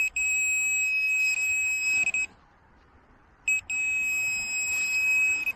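Handheld metal-detecting pinpointer probe sounding a steady high-pitched alarm tone: two long tones of about two seconds each, each led by a short blip, as it picks up a metal target in the dug hole.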